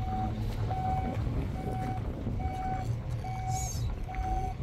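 A vehicle's reversing alarm beeping steadily, one short single-pitched beep a little under once a second, over a continuous low rumble.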